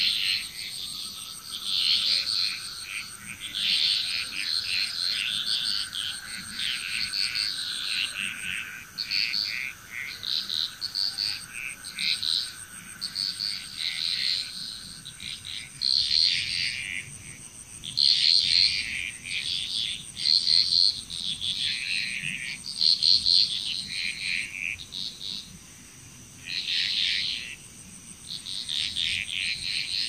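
Chorus of frogs calling: many short, rapidly pulsed calls coming in irregular, overlapping bursts, with a faint steady whine beneath that fades out about halfway through.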